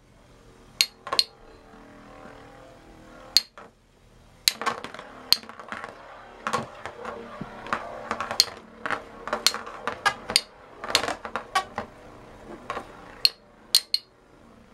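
Two Beyblade spinning tops battling in a plastic stadium, clinking sharply as they hit: a few separate knocks at first, then a quick run of clashes from about four seconds in.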